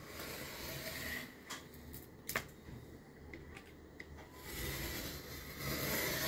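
Utility knife drawn along a metal straightedge, slicing through aluminium-foil-faced asphalt sound-deadening mat with a rasping scrape, in two strokes. The mat is cut from the asphalt side, so the blade has to be forced through the foil. A few sharp clicks come between the strokes, the loudest about two and a half seconds in.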